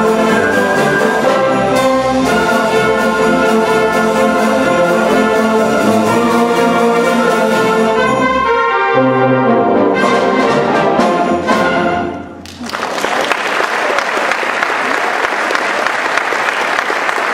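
Full orchestra playing the closing bars of a piece, with sustained chords and then a few short punched chords before it stops about twelve seconds in. Audience applause follows at once and continues.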